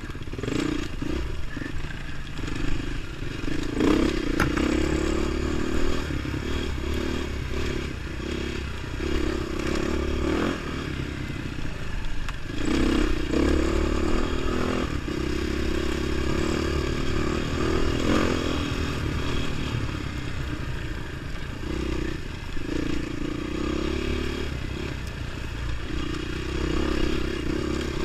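Beta 450 RR single-cylinder four-stroke dirt bike engine running under the rider, revs rising and falling repeatedly with the throttle, with scattered clatter and knocks from the bike on the rough trail.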